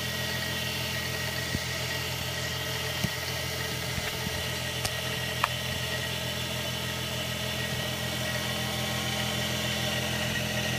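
Steady mechanical hum with a fast, even pulse from a CNC-converted X2 mini mill standing powered up between cuts, with a few light clicks.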